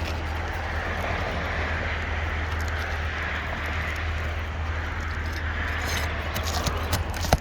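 Steady outdoor background noise: a constant low rumble under a broad hiss that slowly swells and fades. A few sharp clicks come near the end.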